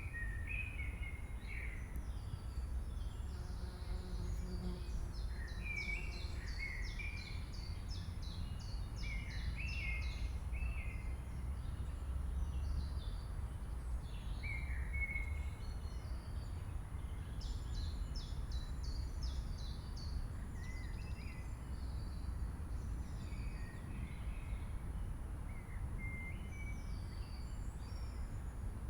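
Many short, high chirps and squeaks come in clusters over a steady low background rumble.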